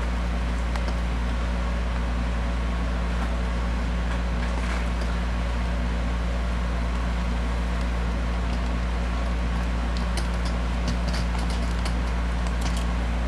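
A steady low background hum that holds level throughout, with a few faint ticks near the end.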